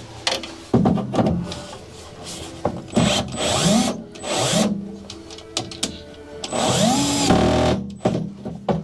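Power drill/driver run in about four short bursts, its motor whine rising and falling in pitch each time, typical of driving screws.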